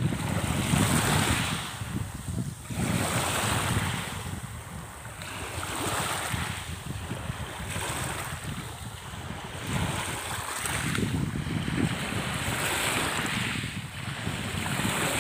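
Sea waves rushing and washing in repeated swells every couple of seconds, with wind buffeting the microphone.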